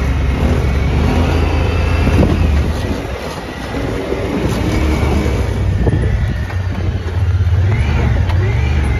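Small side-by-side UTV engine running as it drives over a dirt trail, a steady low rumble that eases off about three seconds in and picks up again, rising and falling in pitch near the end.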